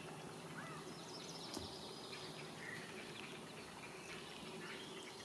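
Faint wetland ambience: scattered short, high bird chirps over a low steady hum.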